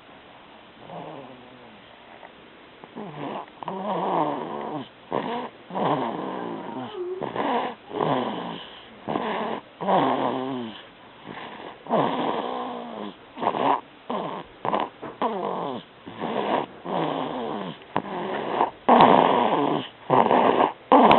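A baby snoring in its sleep: a short, pitched, falling sound on each breath, about one every second or so, louder toward the end.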